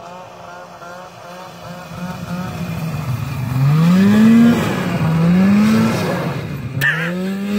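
Arctic Cat snowmobile engine coming closer and getting louder, then revving in repeated rising bursts as the sled drifts around in a tight turn on the snow. A brief sharp click comes near the end.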